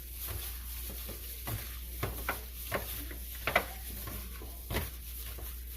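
Raw chicken strips being mixed with hot sauce in a bowl: irregular short wet squishes and light knocks.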